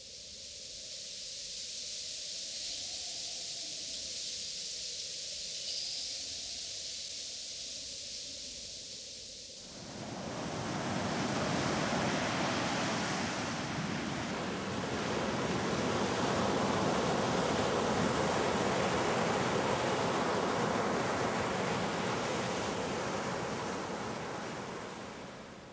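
Water sounds: a steady hiss at first, then, about ten seconds in, fuller and louder ocean surf washing in, fading out near the end.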